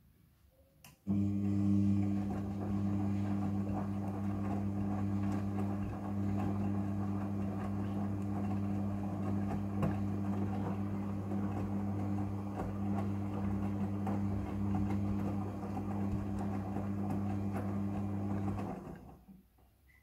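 Midea front-loading washing machine's drum motor starting about a second in and turning the drum with a steady hum, wet laundry tumbling and swishing inside; it winds down and stops near the end, one turning phase of the wash cycle.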